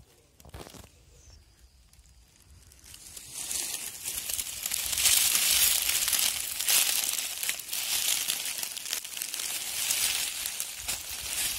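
Dry leaves and grass crackling and rustling as a hand works around the base of a porcini mushroom to pull it up, starting about three seconds in and running on densely. A single short knock about half a second in.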